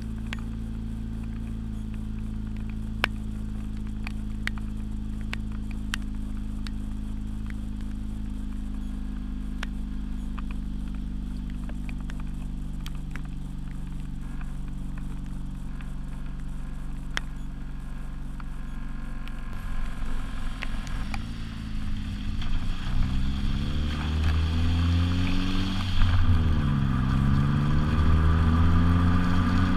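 2011 Ford Focus S's 2.0-litre four-cylinder engine, heard through an FSwerks Stealth aftermarket exhaust, idling steadily, then revved repeatedly from about twenty seconds in, the note rising and falling with each rev and growing louder.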